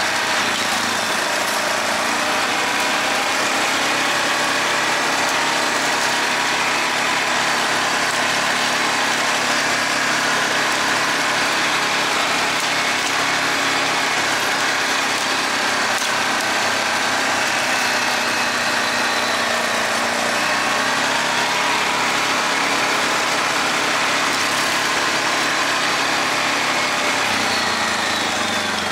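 Yamaha Grizzly 450 quad's single-cylinder four-stroke engine running steadily, its pitch drifting slowly up and down.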